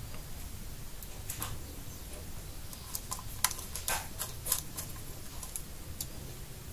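Irregular small clicks and ticks of a screwdriver and tiny screws as the screws holding a laptop's hard drive are put back in. There is a quick cluster of clicks in the middle, over a faint low hum.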